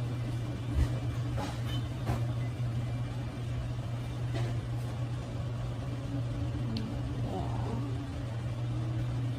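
A steady low mechanical hum, like a running motor, with a few faint clicks.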